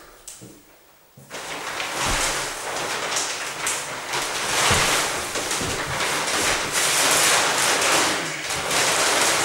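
Large black polyethylene film sheet rustling and crinkling as it is bunched up and folded by hand. The crinkling starts about a second in and goes on loudly, swelling and easing as the sheet is handled.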